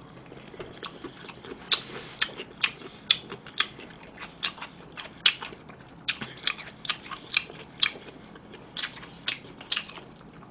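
Close-miked chewing of crunchy food, a pickle slice: a string of sharp, irregular crunches and wet mouth clicks, about two a second.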